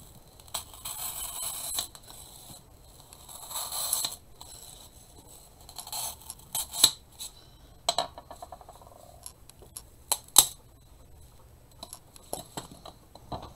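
Plastic-wrapped dry floral foam brick handled and slid over a cutting mat: two spells of plastic crinkling and scraping in the first few seconds, then a scatter of sharp clicks and knocks.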